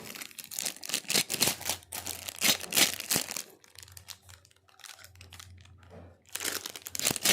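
Plastic jewellery packaging crinkling and rustling as it is handled and opened, in dense irregular crackles for the first few seconds, quieter in the middle, and picking up again near the end.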